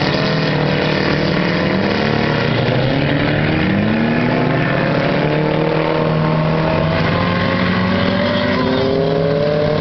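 Several race-car engines running together on a dirt oval, their overlapping pitches climbing slowly as the cars accelerate out of the turn and down the straight.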